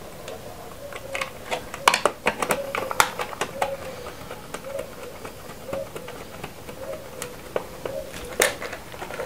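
Irregular sharp clicks and small scrapes of a wire being worked into the screw terminal of a DIN-rail star-delta timer relay and fastened, loudest about two seconds in and again near the end.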